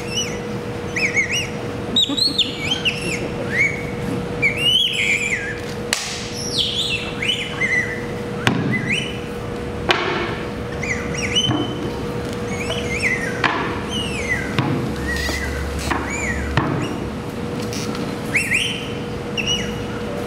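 Bird-like chirping and whistled calls: many short notes gliding up and down, repeated throughout, over a steady hum, with a few sharp knocks.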